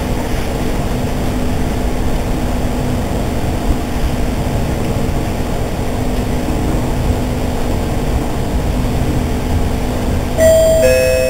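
Italian regional passenger train heard from inside the coach while it runs: a steady low rumble with a faint hum. About ten seconds in, a two-note descending chime sounds from the onboard public-address system, the signal that an announcement is coming.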